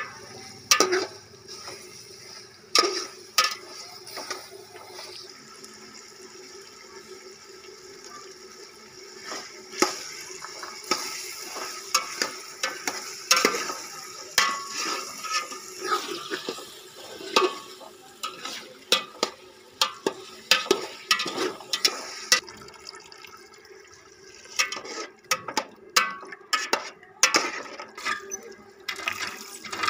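A metal ladle stirring potatoes in oil and masala in a steel pot, knocking and scraping against the pot's sides again and again. Near the end, water runs from a pipe into a plastic tub as cracked wheat is washed by hand.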